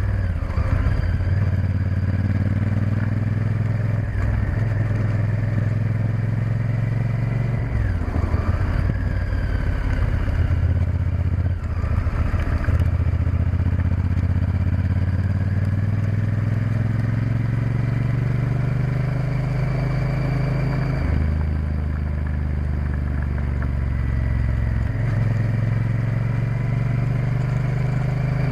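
Honda Varadero XL1000's 996 cc V-twin engine running under way, heard from the bike, its note rising and falling with the throttle. In the second half it climbs slowly for several seconds, then drops abruptly twice.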